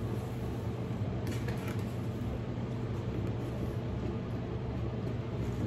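Room air conditioner running with a steady hum, with faint rustling of paper and ribbon as a gift-wrapped shoebox is untied and opened.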